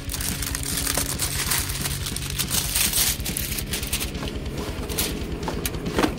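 Rustling and crinkling of a sealed cardboard model-kit box being handled and opened by hand, with a sharp knock near the end as the box meets the desk.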